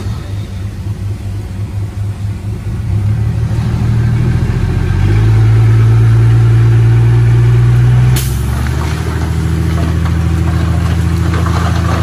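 Heavy diesel engine running, getting louder and higher as it is worked harder about three and five seconds in. About eight seconds in it changes abruptly to a steady, slightly lower note.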